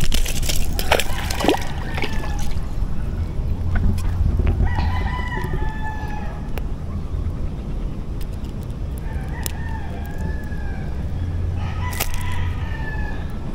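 Roosters crowing about three times, around five, nine and twelve seconds in, with a few sharp clicks and knocks near the start.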